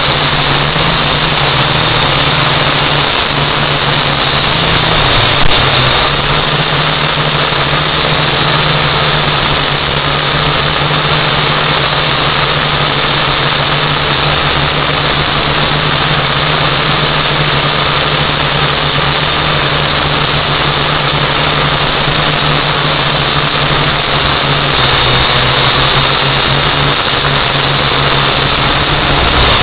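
Holy Stone U818A quadcopter's motors and propellers whining steadily in flight, picked up close by the drone's own onboard camera. The high whine wavers slightly in pitch over a steady low hum, with a single click about five seconds in.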